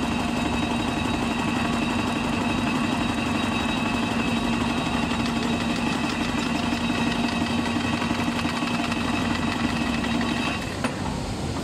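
XQL channel letter bending machine running with a steady mechanical hum. The hum stops about ten and a half seconds in, followed by a faint click.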